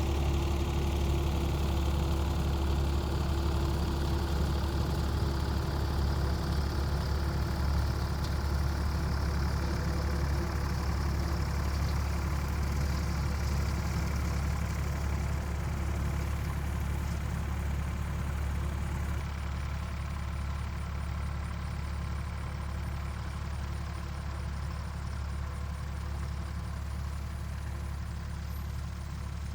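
An engine running steadily at a constant low speed: a deep, even hum with a regular pulse, slowly getting a little quieter toward the end.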